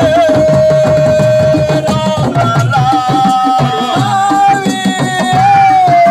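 Assiko band music: hand drums beating busily under a melody held on long, steady notes that step to a new pitch a couple of times.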